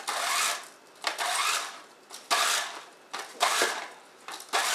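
VHS videotape being pulled out of its cassette in arm-length yanks, about one a second: each pull is a short burst of whirring and rustling as the tape runs off the reel.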